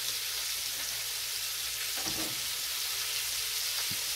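Hot oil sizzling and bubbling steadily in a deep skillet as homemade French fries fry, with a faint knock about two seconds in and another near the end.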